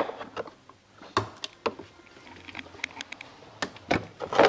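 Hands unplugging a plastic electrical connector and pulling wiring free on the air-filter housing: a string of small, sharp plastic clicks and knocks with handling rustle, the loudest knock near the end.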